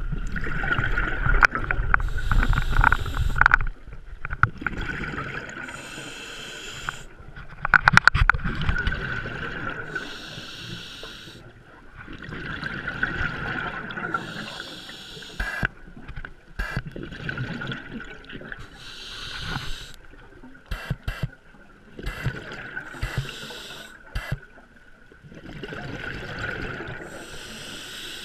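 Scuba diver breathing through a regulator underwater: exhaled bubbles gurgle out in rounds every few seconds, with a few short clicks near the middle.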